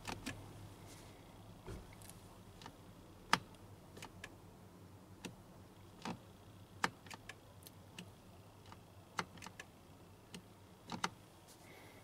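Faint, sharp clicks at irregular intervals from the hazard switch and turn-signal flasher in a 2006 Toyota Sienna's cabin. There is no steady blinker ticking: the hazards flash only once and stop, a fault the mechanic links to a short circuit overloading the flasher.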